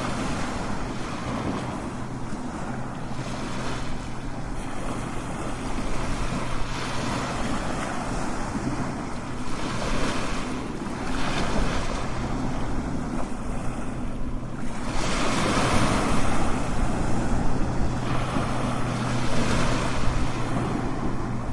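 Strong ocean waves crashing, a continuous rush of surf that swells and eases every few seconds, with a faint steady low hum underneath.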